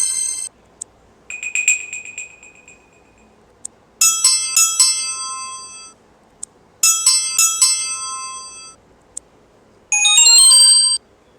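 Asus ZenFone 2 Laser preset ringtones previewed one after another: a single chime that fades out, then a short bell-like figure played twice, then a quick rising run of notes near the end, with short ticks in the gaps between them.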